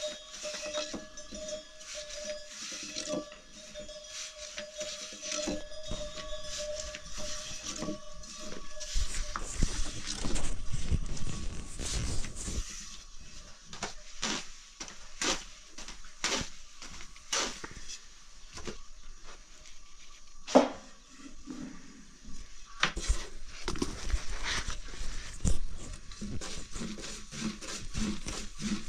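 Cooking pots and utensils being handled: irregular clinks and knocks, with the loudest sharp knock about twenty seconds in.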